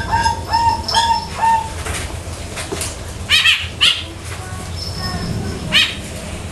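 Rooster clucking: a quick run of short, low clucks in the first second and a half, then a few brief, sharper calls about three and four seconds in and again near six seconds.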